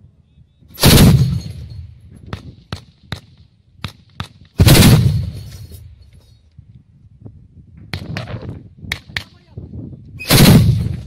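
Twin-barrel 23 mm anti-aircraft autocannon firing three short bursts a few seconds apart, each trailing off in an echo. Fainter sharp cracks come in between.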